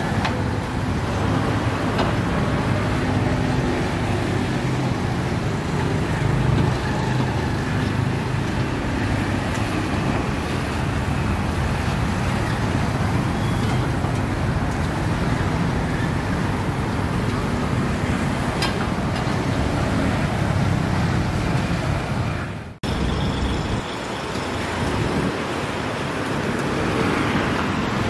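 Steady low rumbling background noise that breaks off for a moment about three-quarters of the way through, then carries on.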